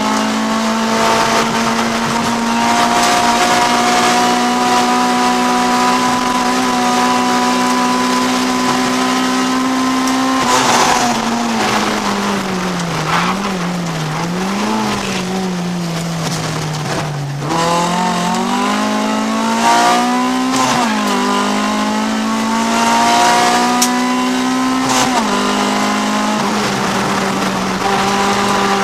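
A Honda CRX race car's B20 VTEC four-cylinder engine heard from inside the cockpit, held at high revs for the first ten seconds or so. The revs then fall off and waver up and down through the middle, as when braking and shifting down for a corner. They climb hard again, stepping down at each upshift in the last third.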